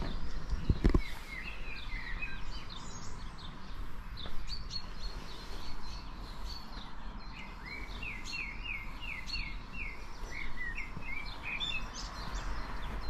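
Songbirds singing and chirping, including a run of about ten quick, repeated falling notes in the second half, over a low background rumble.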